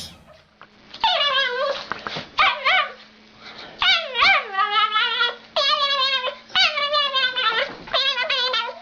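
A dog whining and yipping in a run of high, wavering cries that start about a second in and keep coming with short gaps.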